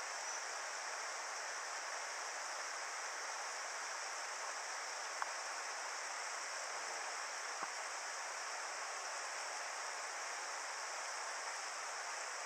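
Steady rush of a mountain river's flowing water, with two faint clicks, about five and seven and a half seconds in.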